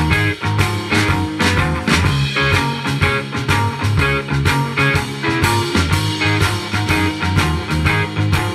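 Rock music with a steady beat, played at a fairly loud listening volume through a pair of PLANTER 16 cm coaxial two-way car-audio speakers in 15-litre bass-reflex boxes. It is picked up through the air by a stereo microphone about 80 cm away, with no equalisation or effects.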